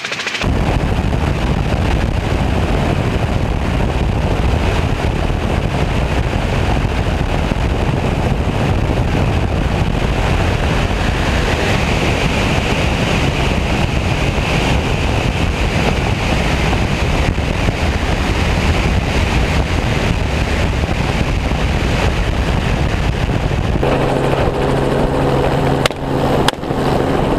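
Helicopter in flight heard from aboard: steady, loud rotor and engine noise with rushing wind. Near the end a steadier humming tone comes through.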